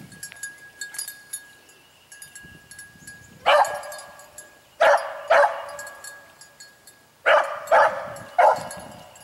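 A single rabbit hound baying on a rabbit's scent trail: six loud bays in two groups of three, starting a few seconds in.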